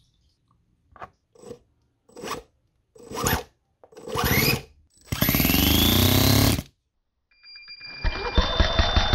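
Toyan single-cylinder four-stroke nitro engine being spun over by a starter in short bursts that grow longer, the pitch rising in each as it spins up. About eight seconds in it catches and runs with a rapid, even firing beat, its pitch slowly climbing.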